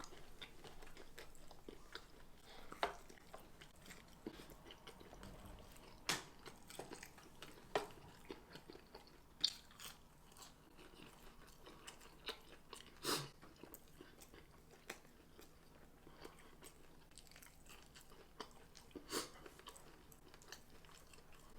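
Close-up chewing of fried chicken tenders and fries: faint mouth and chewing sounds, broken by scattered short, sharp crunches and clicks, the loudest about six and thirteen seconds in.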